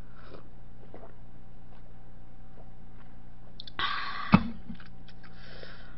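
Drinking break at a mukbang table: about four seconds in, a short breathy 'ah' exhale, then one sharp clack with a low thump as a metal makgeolli bowl is set down on the table. A steady low hum runs underneath.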